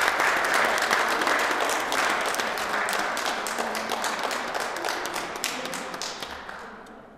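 Audience applauding: many hands clapping in a dense patter that slowly dies away and ends near the end.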